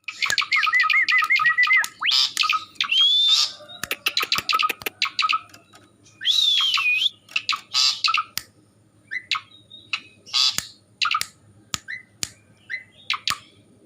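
Asian pied starling (jalak suren) calling in an unusual, varied run: a wavering warble, rising whistled glides, and harsh squawks, mixed with many sharp clicks.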